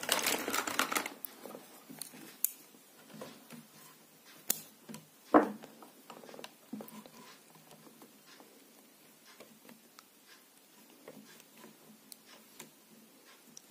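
Wire cutters and hands working a thin power wire and multimeter test leads: scattered light clicks and rustles, with one sharper snip about five seconds in as the broken length of wire is cut away.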